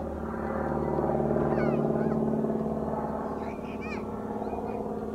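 Piper PA-46 single-engine propeller aircraft flying overhead, its steady engine and propeller drone swelling about a second in and easing off again toward the end.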